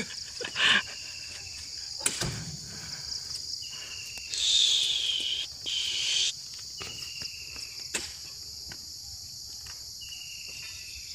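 Steady high-pitched insect chorus of crickets and cicadas, with a louder insect buzz swelling for about two seconds near the middle and a few short falling-pitch calls. A few sharp thuds, the loudest about two seconds in, as oil palm fruit bunches are thrown into the truck bed.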